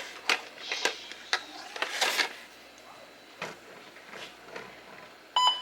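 Quiet small-room handling noises with a few faint clicks and rustles, then one short electronic beep near the end, typical of an otoacoustic-emission hearing screener signalling that its test is complete.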